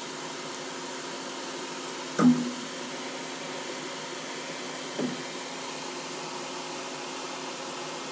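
Benchtop solder fume extractor fan running steadily. Two brief knocks cut through it, a louder one about two seconds in and a softer one about five seconds in.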